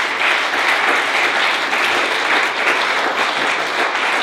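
Audience applauding: many hands clapping in a dense, steady wash that starts just after the talk's closing thanks.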